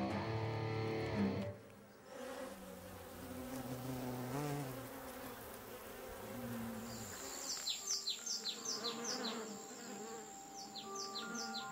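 Hornet buzzing in flight, its pitch wavering up and down, after background music ends about a second in. From about the middle on, a run of quick falling chirps, about four a second, sounds over a thin, high, steady tone.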